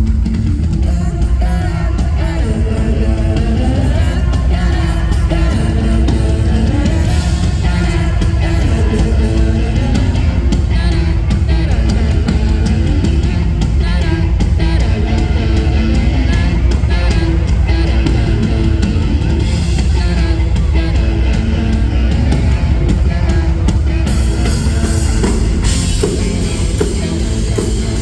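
Live pop-rock band performance with singing over a loud, bass-heavy mix. The sound grows brighter from about 24 seconds in.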